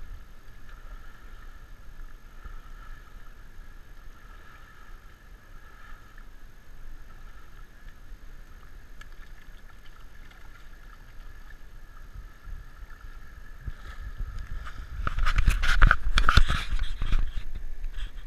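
Water sloshing and swishing as an elephant wades through a shallow muddy river, over a steady high-pitched buzz. Near the end there is a loud spell of knocks and rumbling from the camera being handled.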